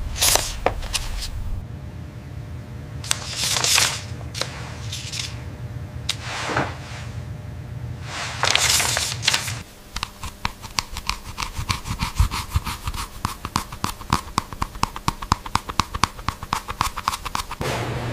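A few short, crisp swishes like banknote paper being handled, over a low steady hum. About ten seconds in they give way to a fast run of sharp clicks, many a second, which stops shortly before the end.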